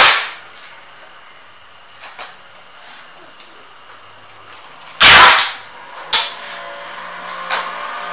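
Clear packing tape ripped off its roll in two loud, short rips, one at the very start and one about five seconds in, with smaller crackles and taps as the tape is laid and pressed along a roll-up banner stand's aluminium base rail.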